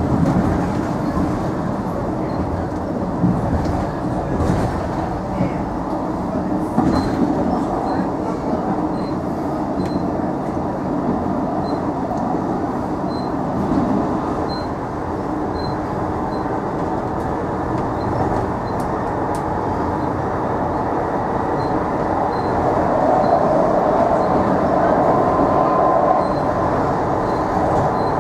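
Tyne and Wear Metro train running at speed, heard from inside the car: a steady rumble of wheels on the rails with occasional clicks, a little louder about two-thirds through.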